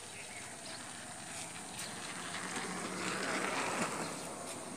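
A motorcycle passing on the road, its engine hum swelling to its loudest about three and a half seconds in and then fading.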